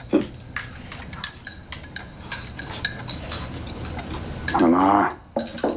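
Chopsticks clicking and clinking against ceramic rice bowls as people eat: scattered light taps, some with a short ring.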